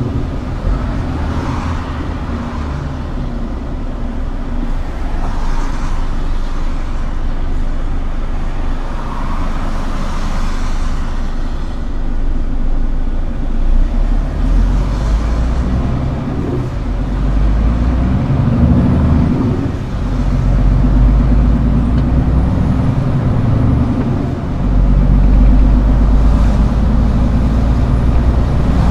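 Scania R410 truck's diesel engine running continuously, its revs dropping and picking up again a few times, and running louder and harder over the last few seconds.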